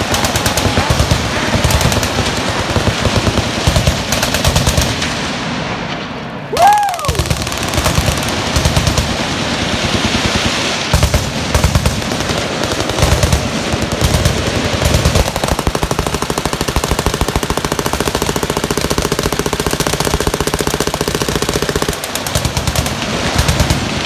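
Many machine guns firing downrange at once in dense, overlapping bursts. About six seconds in, a brief lull ends in a single loud bang. In the second half, a long unbroken stream of very rapid fire cuts off suddenly near the end.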